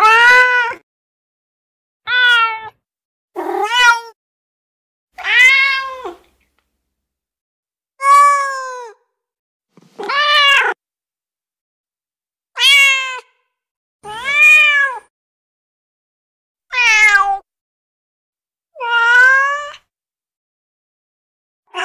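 A series of recorded domestic cat meows, about ten separate drawn-out calls a second or two apart, each rising and then falling in pitch, with clean silence between them.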